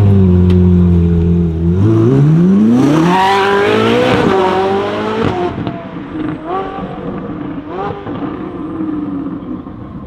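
Ferrari 458 Italia's V8 through a loud Capristo exhaust accelerating hard: the engine note holds steady for about two seconds, then climbs steeply through the revs with a gear change around four seconds in. After that it drops away and fades, with two more brief rising pulls as it shifts up further off.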